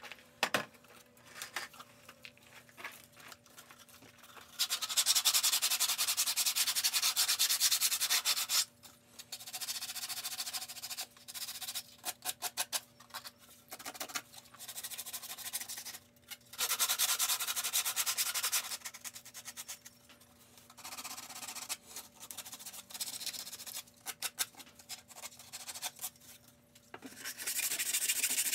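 Sanding in three bursts of a few seconds each, with quieter rubbing and light taps between them.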